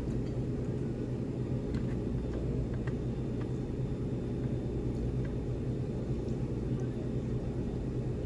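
A steady low hum of background machinery, with a few faint light clicks scattered through it.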